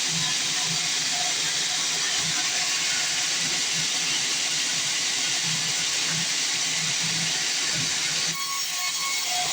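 Sawmill band saw cutting through a log, a steady hiss-like noise that thins out slightly near the end.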